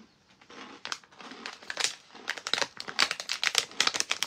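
A mouthful of crunchy baked Gouda cheese snacks being chewed, with the snack bag crinkling in the hand. It comes as a rapid, irregular run of crunches and crackles that starts about a second in and grows louder.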